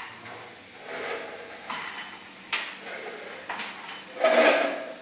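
Kitchen utensils and dishes being handled on a counter: a few separate light knocks and clicks, then a longer, louder clatter near the end.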